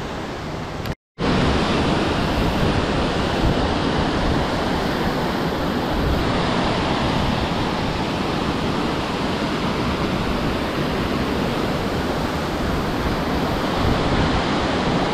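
Tokopah Falls cascading over granite boulders: a steady, loud rush of white water. The sound cuts out for an instant about a second in and comes back louder.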